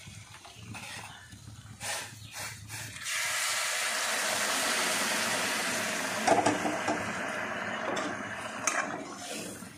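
Hot water poured onto mutton and potatoes frying in a hot steel kadai, setting off a loud sizzling hiss about three seconds in that slowly dies down over several seconds. A few clinks of a spoon on the pan as it is stirred.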